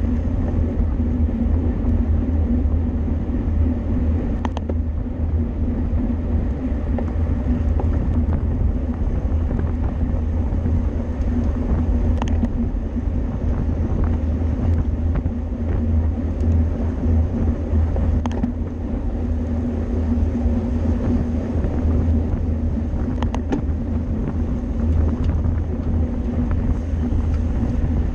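Steady wind and road rumble of a road bicycle racing at speed, with a few short, sharp clicks.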